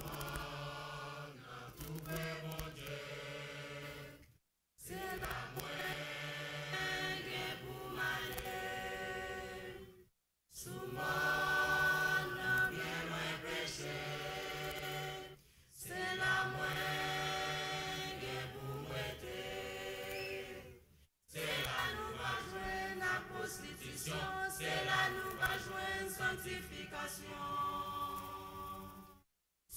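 Mixed choir singing together in several voice parts. The sound drops out completely four times for a fraction of a second.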